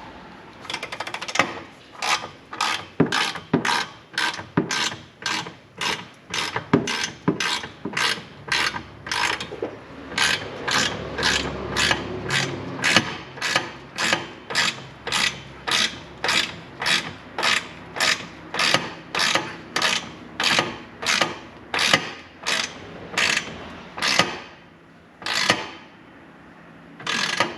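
Hand ratchet wrench clicking in a steady back-and-forth rhythm, about two strokes a second, as it tightens the clamps that hold the exhaust tips. It pauses near the end, then gives one more stroke.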